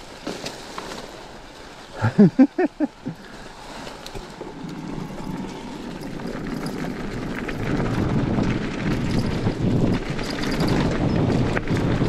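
Wind buffeting the microphone and knobby tyres rolling over a dirt forest trail, growing steadily louder from about four seconds in as the e-mountain bike picks up speed. About two seconds in there is a quick run of five short pitched sounds.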